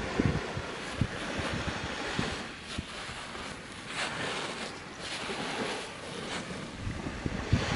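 Sea surf washing onto the beach in slow swells, with gusts of wind buffeting the microphone.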